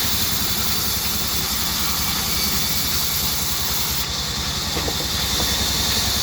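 Band saw running steadily: a constant hiss over a low hum.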